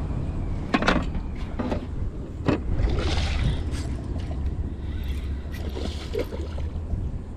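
Wind buffeting the microphone as a steady low rumble, with a hooked red drum splashing at the surface beside the boat. A few sharp knocks come in the first few seconds.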